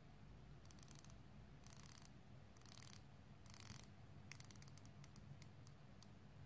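Seiko SKX diver's watch bezel being turned by hand, its one-way ratchet clicking faintly: four quick runs of clicks, then slower single clicks.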